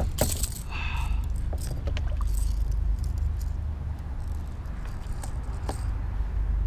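Wind buffeting the microphone as a steady low rumble. Over it, gear clicks, rattles and clinks as it is handled in the kayak, most busily in the first second and again a few seconds in.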